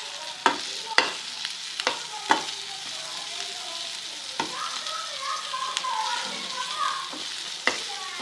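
Green chillies frying in spiced oil in a pan over a medium flame, with a steady sizzle. A spoon clacks against the pan now and then as they are stirred, about six times.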